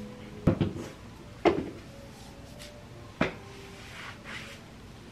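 Three sharp knocks of cupboard doors or drawers being shut while clothes are fetched, the first about half a second in and the last a little after three seconds.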